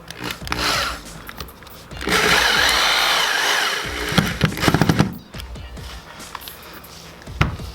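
Power drill running for about two seconds, its motor pitch rising and falling, then a burst of rapid rattling pulses lasting about a second, as it drives in fasteners.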